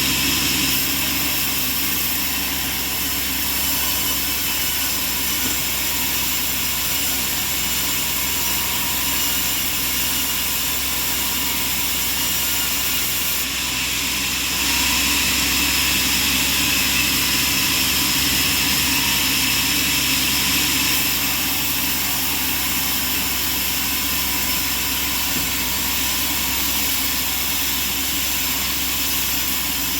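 Band sawmill machinery running with a steady drone and hiss made up of several steady tones. It grows louder for about six seconds around the middle, then settles back.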